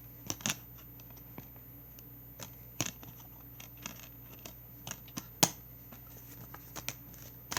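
Plastic Blu-ray case and its paper inserts being handled: a string of irregular clicks and light rustles, with the sharpest snap about five and a half seconds in.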